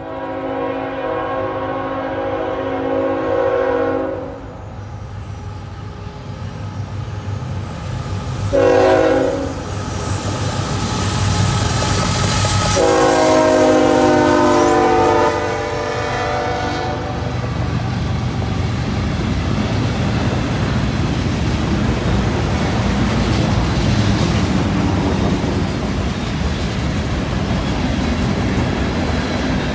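Freight diesel locomotive horn sounding a long blast, a short one and another long one as the locomotives approach and pass. After that comes the steady rumble and clatter of freight cars rolling by on the rails.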